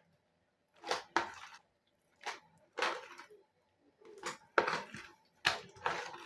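Slime squelching as it is squeezed and handled: about eight short wet, sticky bursts coming in quick pairs, the loudest near the middle.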